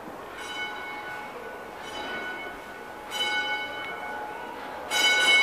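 A bell struck four times at uneven intervals of about one to two seconds, each strike ringing on and fading; the last strike, near the end, is the loudest.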